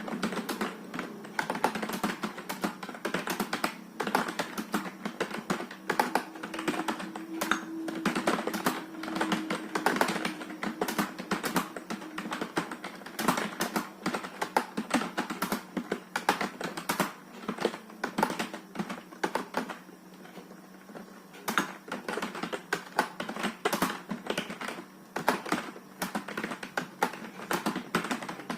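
Computer keyboard being touch-typed on during a typing test: a fast, uneven run of key clicks at about 32 words a minute, with a short pause about twenty seconds in. A faint steady hum sits underneath.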